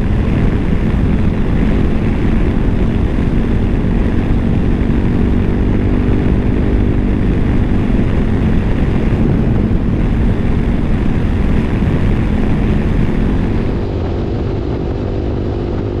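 Honda Forza 300 scooter's single-cylinder engine running at a steady cruise, with wind rushing over the rider's microphone. Near the end the wind noise drops a little.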